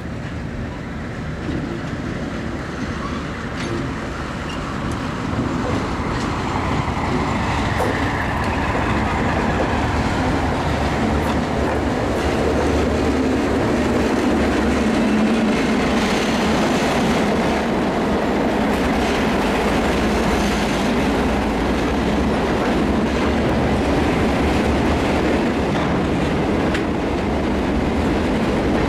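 A Delaware-Lackawanna six-axle diesel locomotive approaches and passes, its engine growing louder over the first dozen seconds or so. Freight cars then roll steadily by on the rails.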